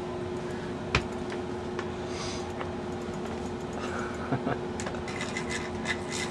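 Studio room tone: a steady faint hum, with one sharp click about a second in and a few soft clicks later.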